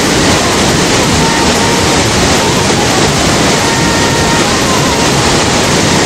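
Waterfall pouring into a rocky pool, with the river rushing over boulders below it: a loud, steady rush of water.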